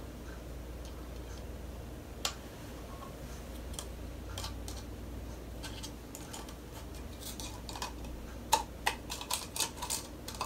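Hard plastic toy egg clicking as a child twists and pries its zig-zag seam apart by hand: a few scattered clicks at first, then a quick run of clicks near the end.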